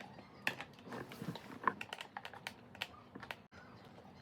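Quiet, irregular clicks and taps of a screwdriver working the screws on a Steelbird SBA-20 helmet's plastic shell.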